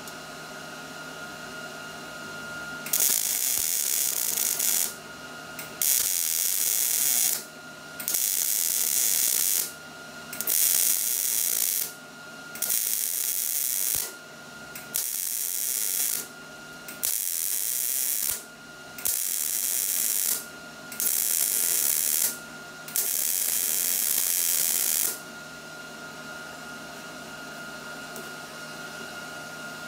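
MIG welding arc crackling in about ten bursts of one to two seconds each, with short pauses between, starting about three seconds in and stopping near the end, as a bracket is welded onto a motorcycle muffler.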